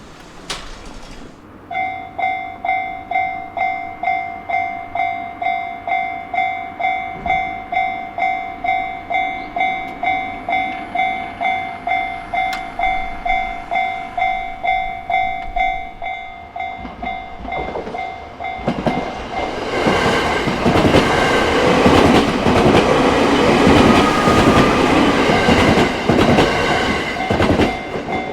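Japanese level-crossing warning bell starts ringing a couple of seconds in, pulsing about twice a second. About two-thirds of the way through a train passes over the crossing, its wheels clattering on the rails and drowning out the bell, which is heard again near the end.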